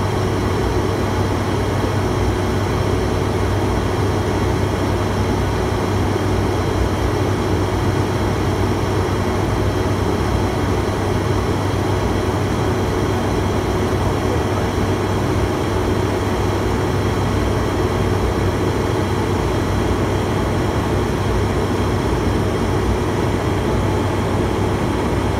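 Steady drone of an ATR 72-600's twin Pratt & Whitney PW127 turboprop engines and propellers, mixed with airflow noise, heard from inside the flight deck on final approach. It runs evenly, with a low hum underneath and no change in pitch.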